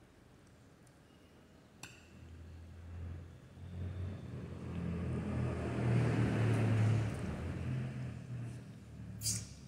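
A motor vehicle going by, its engine hum swelling over a few seconds and then fading away. There is a sharp click near the end.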